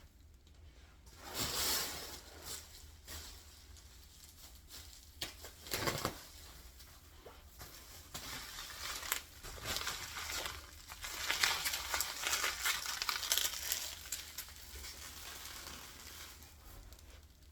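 Packing material crinkling and rustling in irregular bursts as items are wrapped and packed into a moving box, busiest in the second half.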